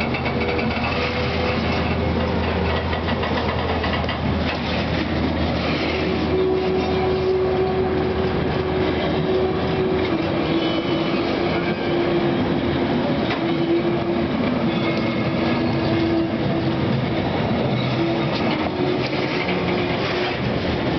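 Railion class 6400 diesel locomotive 6460 passing, its engine hum easing off in the first few seconds. A string of empty intermodal container flat wagons then rolls steadily past, with clattering wheels on the rails.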